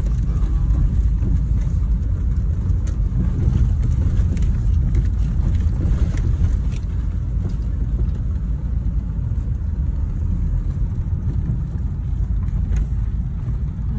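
Steady low road and engine noise of a car being driven, heard from inside the cabin, with a few light clicks now and then.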